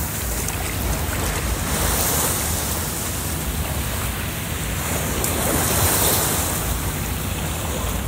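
Wind buffeting the microphone and rushing water over a steady low engine drone, as on a moving boat.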